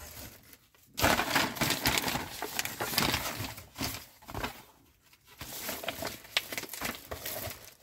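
Paper rustling and crinkling as a glossy magazine is handled and its pages are opened and turned. It is busiest in the first half, then turns softer and more scattered.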